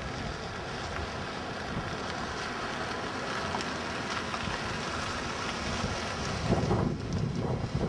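Wind blowing across the camera microphone, a steady rushing noise, with heavier low buffeting gusts near the end.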